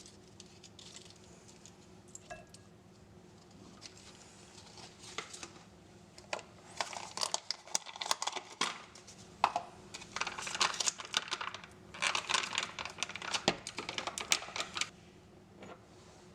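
Kitchen handling sounds: bursts of crinkling and rustling mixed with small clicks and taps, busiest from about six seconds in until shortly before the end.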